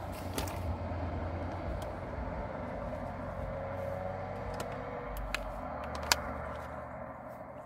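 Steady low vehicle rumble, with a few short sharp clicks, the loudest about six seconds in, as a small found phone is handled and its back opened to reach the battery.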